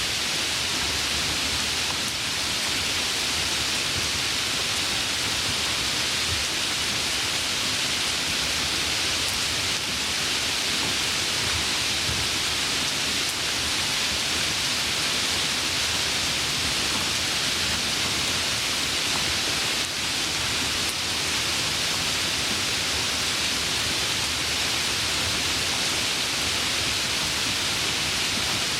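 Heavy rain falling steadily, an unbroken hiss with no separate drops or thunder standing out.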